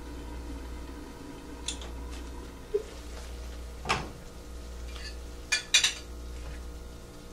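Clatter of cookware: the glass lid of a wok is lifted off and set down on the stove, with a few sharp clinks of glass, metal and utensils. The loudest clinks come as a quick cluster near the end, over a steady low hum.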